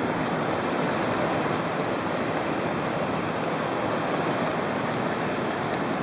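Rio Cangrejal, a fast jungle river, rushing steadily: a continuous even hiss of flowing water.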